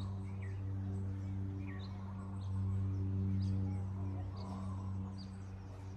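Birds chirping in short, quick rising calls, about one or two a second, over a steady low hum.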